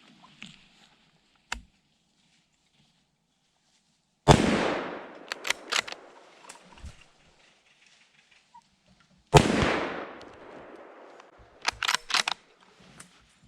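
Two hunting rifle shots about five seconds apart, each trailing off in a rolling echo over a second or two, fired at two does. A few sharp clicks follow each shot.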